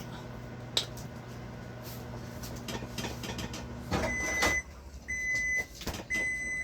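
Microwave oven running with a steady low hum, which stops about four seconds in. It then gives three long, evenly spaced end-of-cycle beeps, about one a second, signalling that the heating time is up.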